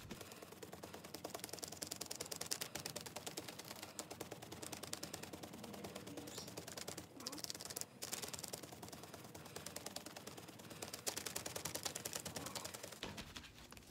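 A paint sponge dabbing blue chalk paint onto a stretched canvas: rapid soft tapping, several dabs a second, with a couple of brief pauses in the middle.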